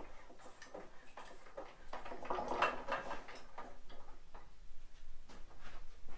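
Irregular light clicks and clinks of metal parts being handled, with a louder rattling scrape about two to three and a half seconds in.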